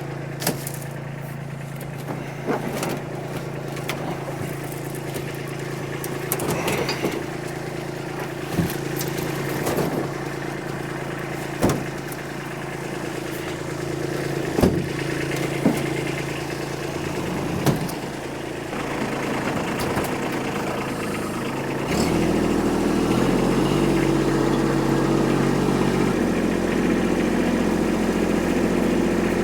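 Kubota tractor diesel engine running steadily, with scattered short knocks and clanks. About three quarters of the way through the engine gets louder and deeper and holds there.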